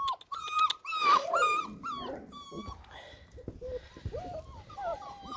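Six-week-old Alaskan malamute puppies whining: a run of short, high whimpers close together in the first couple of seconds, then softer rising whines.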